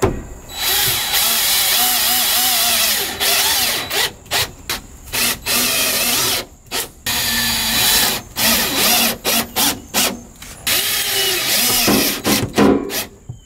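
Cordless drill fastening plywood floor sheets, run in repeated stop-start bursts: a long run first, then shorter runs and quick blips, its pitch wavering under load.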